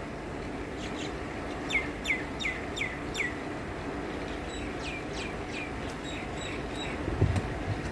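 A bird calling: a quick run of five falling chirps, then three more about two seconds later, over a steady low background hum. A low thump near the end.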